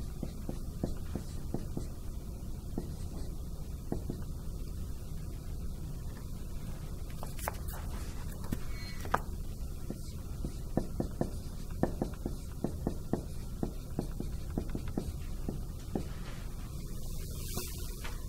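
Marker writing on a whiteboard: a run of short taps and strokes, busiest in the second half, with a couple of brief high hissy strokes, over a steady low room hum.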